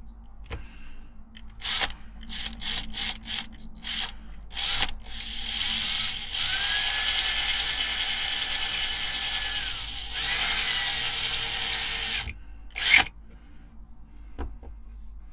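Electric drill drilling out the rivet that holds a diecast toy car's baseplate: a string of short trigger bursts, then a longer steady run of about six seconds with a brief dip in the middle. A single sharp knock comes near the end.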